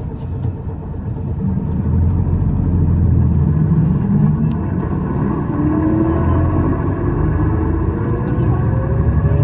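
Isuzu Erga city bus heard from inside the cabin, its diesel engine rumbling louder about two seconds in as the bus pulls away. A whine climbs steadily in pitch over the second half. This bus is singled out for an abnormal noise.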